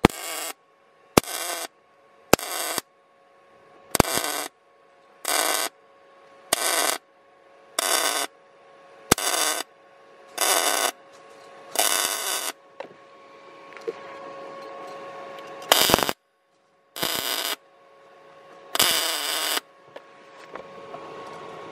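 MIG welder stitch-welding a steel body panel on a Toyota MR2 Mk2 in short tack-weld bursts: about a dozen crackling bursts of arc, each half a second to a second long, roughly one a second, with a pause of a few seconds partway through. A steady hum runs underneath.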